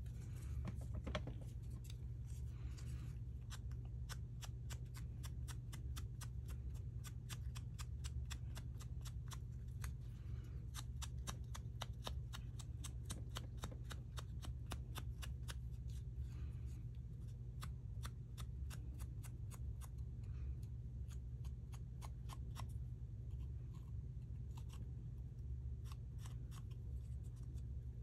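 Hand crafting work on small paper pieces: a fast run of small, sharp clicks and taps, several a second, over a steady low hum.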